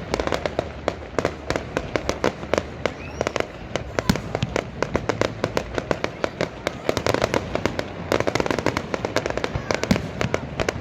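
Fireworks going off in a dense, irregular string of sharp bangs and pops, several a second, without a break.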